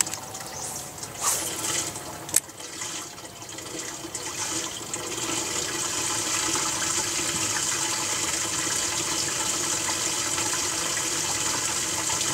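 Steady rush of running water that builds up about four to five seconds in and then holds. Before it come a brief swish and a single sharp click.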